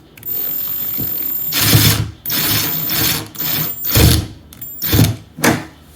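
Cordless drill driving a doorknob screw in bursts: one long run of about a second, then about six shorter pulses of the trigger, the last ones briefest as the screw seats.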